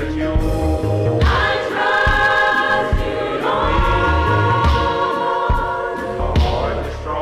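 Gospel choir singing long held chords over a backing track with bass and drums, moving to a new chord about halfway through.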